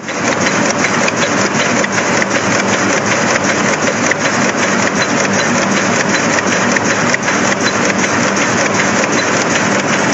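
Heidelberg Speedmaster XL105-6 LX2 sheetfed offset press running, a steady, dense mechanical din with a fast, even ticking clatter.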